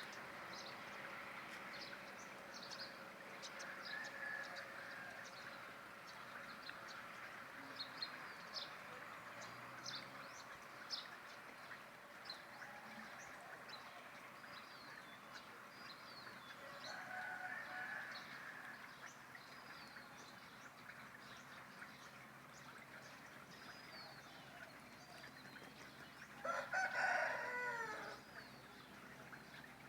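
A rooster crows once, loudly, near the end, with a fainter call in the middle. Small birds chirp throughout over a faint steady background.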